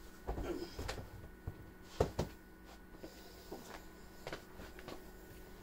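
Faint handling noises: a scattering of soft knocks and clicks from objects being moved about, the sharpest about two seconds in.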